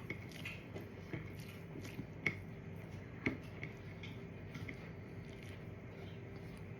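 Soft eating sounds: food being mixed and chewed, with a few small clicks, the sharpest about two and a quarter and three and a quarter seconds in, over a faint steady hum.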